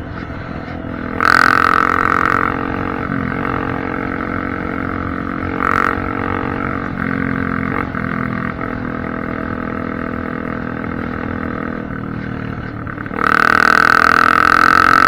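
Honda CRF250F single-cylinder four-stroke dirt bike engine running with the exhaust baffle removed, giving a raw, unmuffled exhaust note. It runs steadily at low revs, is revved up for about a second about a second in, blipped briefly near the middle, and revved again and held from near the end.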